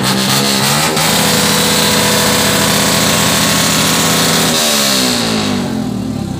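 Motorbike engine being revved: it climbs in the first second, is held at high revs for about three and a half seconds, then its pitch drops away near the end as the throttle closes.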